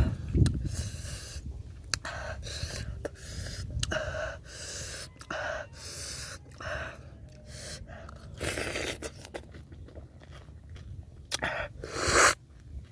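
Eating raw oysters: a metal spoon scraping on the oyster shell, chewing and mouth noises, and a loud slurp near the end as an oyster is sucked from its half shell.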